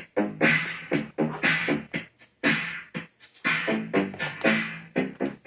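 Electronic funk jam played back from an Akai GX-230D reel-to-reel tape recorder at 7.5 ips. A syncopated beat of sharp drum hits with a pitched bass line, about two strong hits a second.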